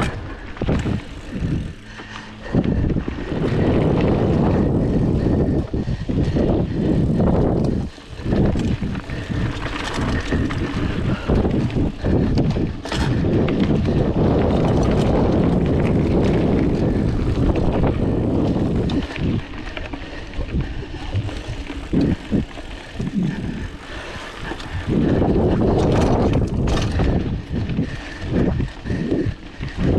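Wind buffeting the camera's microphone over the rattle and crunch of a Specialized Rockhopper 29er mountain bike rolling fast over a dirt trail, with many small knocks and clatters. The loudness surges and drops as the bike speeds up and slows.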